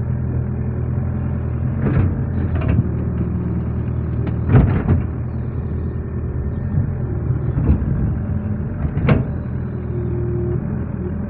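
Excavator's diesel engine running steadily under working load, with several short clunks from the arm and bucket as it moves mud.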